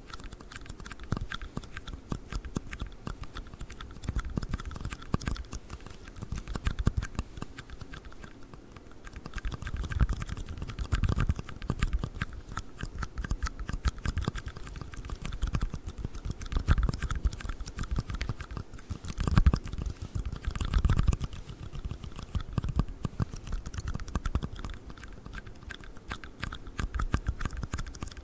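Rapid, continuous tapping and clicking on a black ring box, with a few heavier, duller knocks around the middle.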